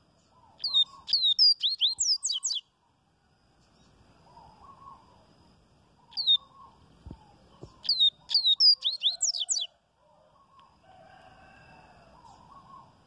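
Coleiro-baiano (yellow-bellied seedeater, Sporophila nigricollis) singing its 'viviti' song: two phrases of fast, high, down-slurred notes, the first about two seconds long, the second starting about six seconds in and lasting about three and a half seconds.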